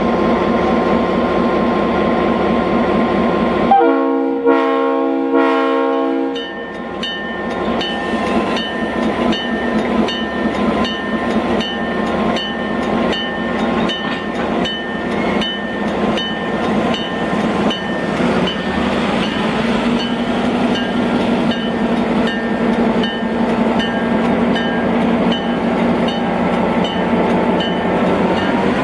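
Milwaukee Road diesel locomotive with its engine running close by. About four seconds in, its multi-note horn sounds one blast of roughly two and a half seconds. After the horn the engine keeps running under an even, repeating ticking.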